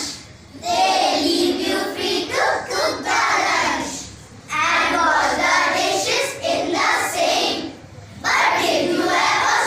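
A group of children's voices in unison, in three lines of a few seconds each with short breaks between them.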